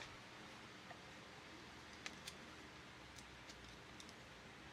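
Near silence with a handful of faint, sharp clicks from the metal gears of a freshly reshimmed gel blaster gearbox being handled and turned by hand.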